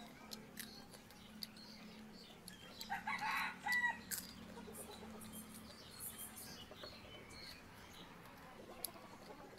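A chicken calls once, about three seconds in, over faint crunching and chewing clicks as crispy shrimp is eaten close by.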